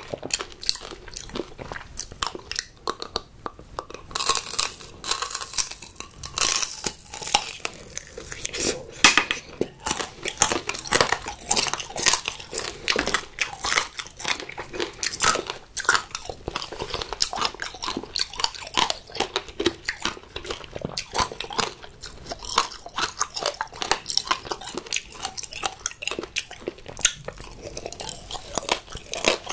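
Close-miked eating of fruit tanghulu: the hard sugar-candy shell cracking and crunching between the teeth, with many sharp crunches in quick succession and chewing between them.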